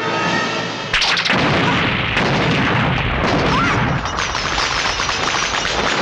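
Film soundtrack explosion effects: a sudden blast about a second in, then continuous crashing noise with a few more bangs.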